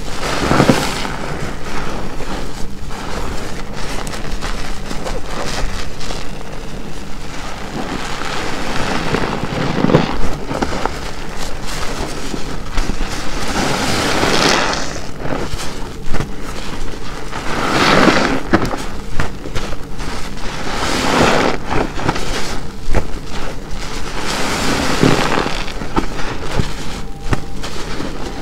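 A very big car wash sponge soaked with detergent being squeezed over and over. Wet squelching swells come every few seconds over a constant wet crackle.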